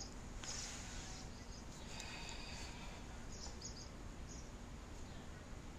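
Quiet outdoor ambience: a steady low rumble with a few faint, short high-pitched chirps scattered through, from birds or insects around the porch.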